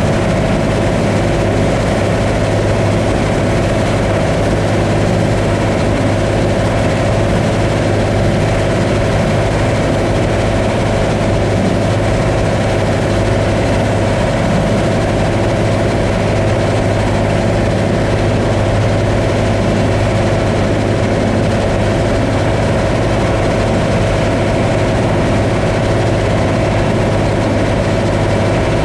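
Combine harvester running steadily while harvesting corn: an even, unchanging machine drone with a deep hum and a steady higher tone above it.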